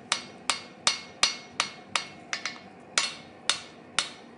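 Blacksmith's hand hammer striking steel on an anvil in a steady rhythm of about two to three blows a second, each blow ringing briefly, forging a chef's knife blade. A couple of quicker, lighter taps come about halfway through.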